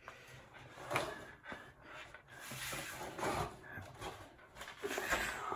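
Irregular rubbing, scraping and light knocks from handling a desktop PC case, as the front panel is worked at.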